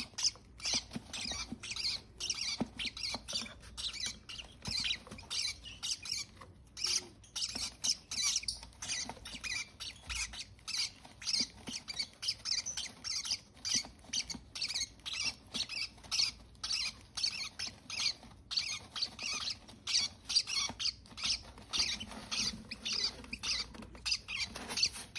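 Baby parrot chick begging while being spoon-fed hand-feeding formula: rapid, repeated high squeaks, about three a second, with a brief pause about two-thirds of the way through.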